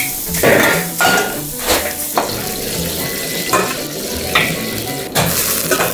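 Food sizzling in a hot wok as it is stir-fried, with a metal ladle scraping and clanking against the wok about eight times at irregular intervals.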